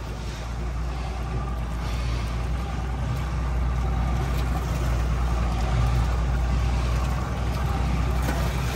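Evinrude 200 H.O. two-stroke outboard motor running steadily at low speed, pushing the boat along, with a steady low drone that grows louder over the first few seconds.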